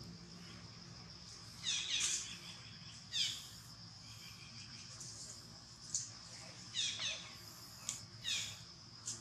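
Steady high insect drone with about eight short, high chirping calls, each falling in pitch. They come in two clusters, a few seconds apart.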